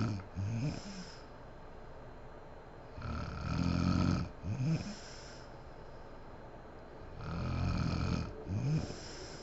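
A sleeping woman snoring heavily in a regular rhythm, about one snore every four seconds. Each snore is a loud, rattling inhale followed by a shorter sound that rises in pitch.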